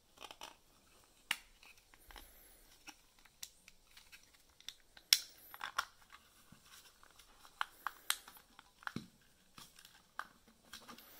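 Hand handling of a small plastic 3D-printed enclosure and its bundle of wires: faint rustling of wire insulation, broken by a handful of sharp plastic clicks and taps as the lid is worked on over the relay module.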